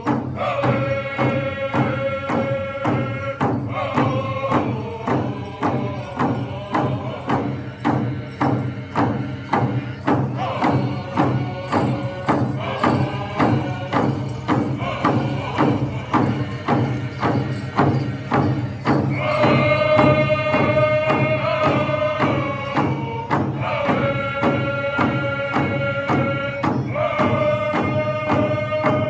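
Powwow drum group: several voices singing in unison in long, held phrases over a large powwow drum struck in a steady beat of about two strokes a second.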